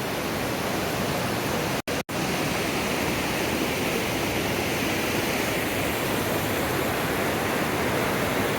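Fast glacial river rushing: a loud, steady roar of water. It drops out twice for an instant about two seconds in.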